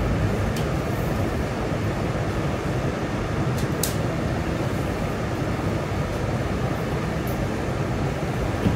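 Steady low running noise heard inside an R211S subway car, with a couple of faint clicks around the middle.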